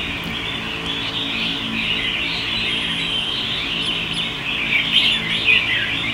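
Caged red-whiskered bulbuls chirping and calling over one another in a continuous chatter, with a faint low steady hum beneath.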